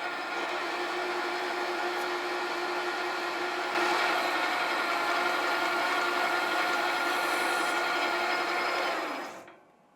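Sieg SC4 bench lathe running under power feed, taking a coarse-feed cut along an aluminium piston blank: a steady motor whine with cutting hiss that gets louder about four seconds in. Near the end the lathe is switched off and runs down.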